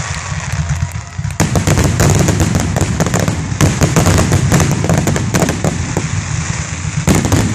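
Fireworks display: after a quieter first second and a half, a dense barrage of aerial shell bursts, many rapid cracks and bangs over a deep rumble.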